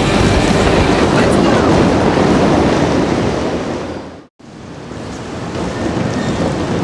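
Roller skate wheels rumbling on the track: a loud, steady rushing noise. It cuts out abruptly for a moment about four seconds in, then fades back up.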